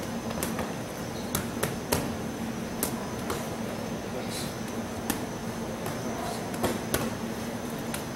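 Boxing gloves smacking against focus mitts: about ten sharp hits at an irregular pace, some in quick pairs, over a steady low hum.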